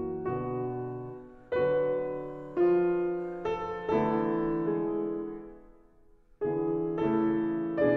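Solo piano playing slow chords, each struck and left to ring and fade. The sound dies away almost to silence about six seconds in, then the next chords come in.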